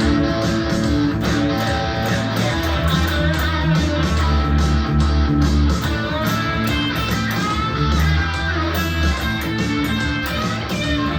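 Guitar jam: plucked and strummed guitar notes over a strong, low bass line with a steady beat.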